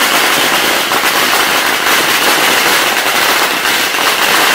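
Firecrackers going off in rapid succession, a dense, unbroken crackle of bangs typical of a long string of crackers burning through.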